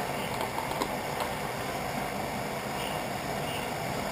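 Steady rushing sound of a pressure stove burner, with a few light clicks from a bottle being handled in the first second or so.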